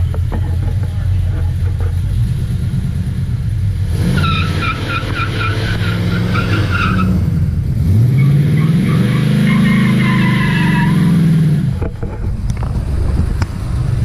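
Drag race car engines rumbling, then revving hard with a high wavering squeal from about four seconds in. About eight seconds in, an engine climbs steadily in pitch as a car accelerates hard down the strip, and it drops away near the end.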